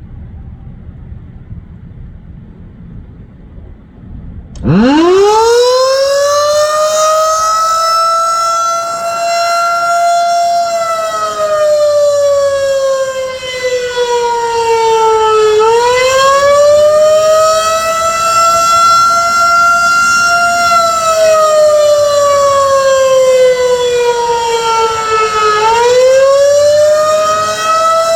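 Federal Signal 2001-130 electromechanical tornado siren starting up about four and a half seconds in, winding quickly up to a loud, steady high pitch. Its pitch then twice sinks slowly over several seconds and swings quickly back up.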